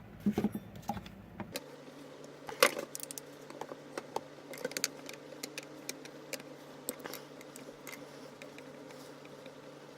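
Small metal screws and tools clinking and clicking as a plunge router's housing is taken apart, a scatter of light clicks and clinks. A faint steady hum comes in about a second and a half in.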